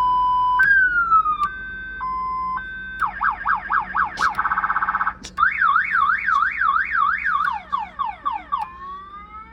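Wolo Animal House Model 345 electronic horn speaker playing its car-alarm sound. It steps through a steady tone, a falling tone, a string of fast falling yelps, a rapid warble, and rising-and-falling whoops.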